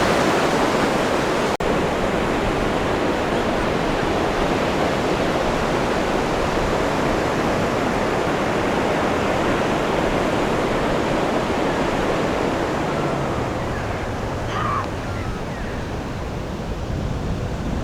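Sea surf washing steadily, a continuous rush of breaking waves. It cuts out for an instant about a second and a half in.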